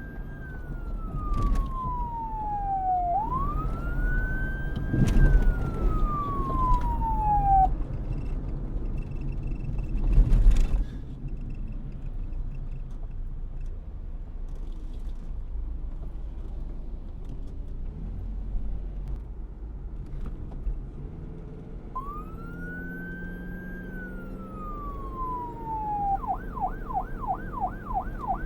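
Police car siren wailing, each cycle a quick rise then a slow fall in pitch, twice over, then falling silent over a low traffic rumble broken by one loud burst of noise about ten seconds in. The wail returns once and switches to a rapid yelp near the end.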